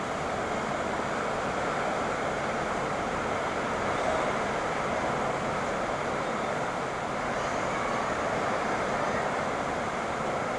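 Steady hiss of falling water, the rain bath for a pied bush chat.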